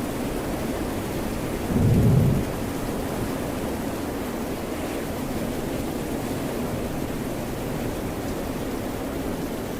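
Steady rain and ocean-wave noise, with one short, loud, low rumble about two seconds in.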